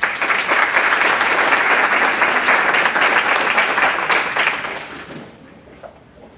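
An audience applauding. The clapping starts all at once, holds steady for about four seconds, then dies away.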